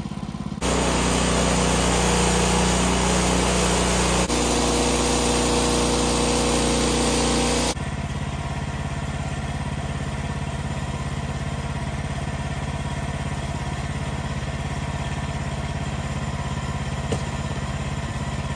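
Woodland Mills HM126 portable band sawmill's small petrol engine running, throttled up about half a second in and running high and steady for about seven seconds, with a small drop in pitch about halfway through. It then drops back to a steady idle for the rest.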